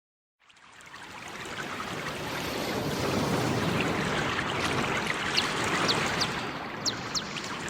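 Steady rush of flowing stream water fading in from silence, with a few short, high, falling chirps from birds in the last couple of seconds.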